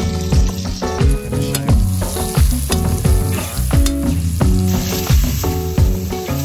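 Background music with a steady beat, about two strokes a second. Under it, vegetables sizzle in hot oil in a cast-iron kazan as a slotted spatula stirs them.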